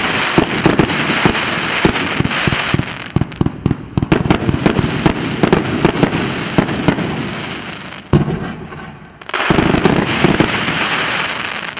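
A 100-shot, 1.5-inch consumer fireworks cake firing: a dense run of bangs over a steady crackling hiss. It eases off briefly about eight seconds in, then fires a last dense volley.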